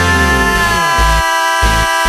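Background music: a held electronic chord, with the bass dropping away and returning about a second in as a choppy, pulsing beat.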